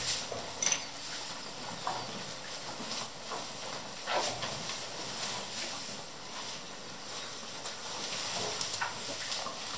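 Dry hay rustling in the feed troughs as cattle pull at it and feed, in short scattered rustles with a few light knocks.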